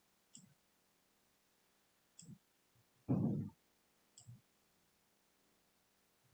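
Faint computer mouse clicks, three of them about two seconds apart, with a louder short low sound about three seconds in.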